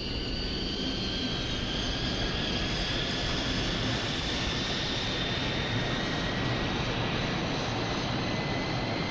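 Sound-design effect like a jet engine: a steady rushing roar with thin whining tones that slowly rise in pitch.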